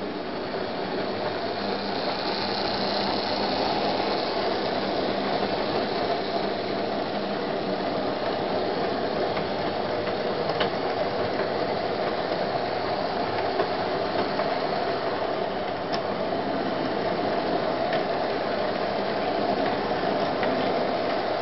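Model railway goods train of vans rolling past on its track: a steady rattling whirr of small wheels on the rails, with a few sharp clicks.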